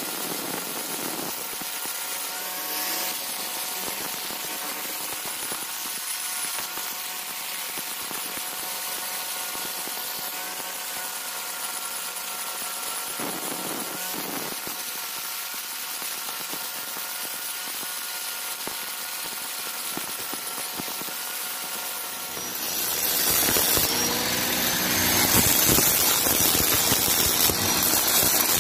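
Electric angle grinder with a cutting disc running with a steady, slightly wavering whine; about 22 seconds in it bites hard into the river stone and the sound turns much louder and harsher.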